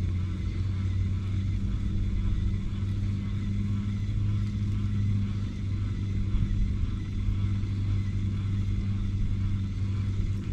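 A small engine running steadily at a constant speed, giving an even low hum.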